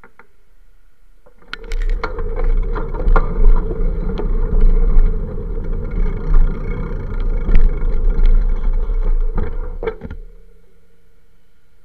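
A bicycle and its mounted camera rattling and knocking while riding over pavement, a rough noise full of sharp knocks. It starts about one and a half seconds in and stops abruptly near ten seconds.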